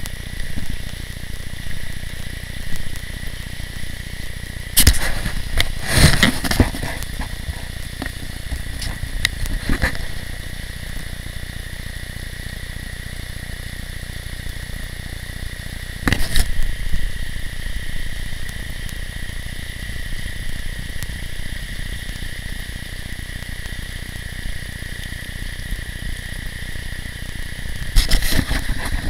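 Shallow, rocky river running over riffles in a steady rushing hiss, broken by a few sudden crackles and knocks around five to ten seconds in, again at about sixteen seconds, and near the end.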